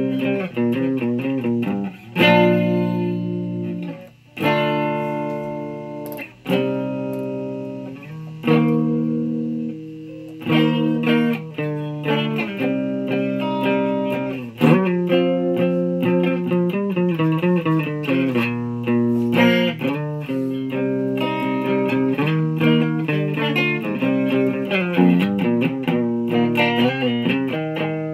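Electric guitar played through effects pedals with a fairly clean tone. Long ringing chords with short breaks come first, then from about ten seconds in, quicker runs of notes and chord changes.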